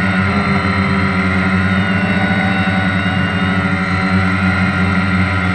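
Quadcopter drone's electric motors and propellers hovering, a steady multi-tone hum and whine heard from on board, wavering slightly in pitch as it holds position.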